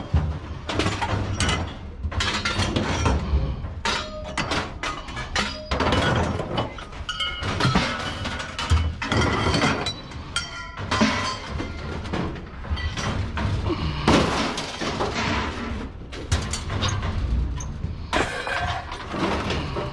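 Scrap being handled: repeated irregular clattering, clinking and knocking of hard objects against one another over a steady low rumble.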